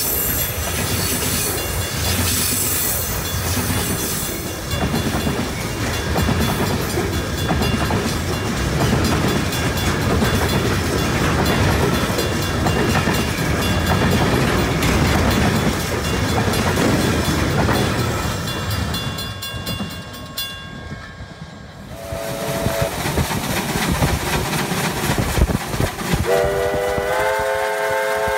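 Freight train's container and tank wagons rolling past at speed, wheels clattering over the rail joints, for about twenty seconds. After a short break comes a brief toot and then a long steam locomotive whistle blast near the end, its pitch rising slightly as it sounds.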